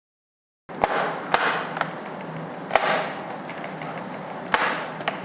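Plastic snap clips of a laptop's bottom cover clicking into place as the cover is pressed on: a handful of sharp, separate clicks a second or so apart over a steady hiss, after a brief dead silence at the start.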